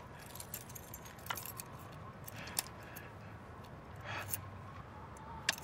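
Faint scattered clicks and small metallic rattles, with a short strained breath about four seconds in: a man struggling to free his leg from under a fallen motorcycle.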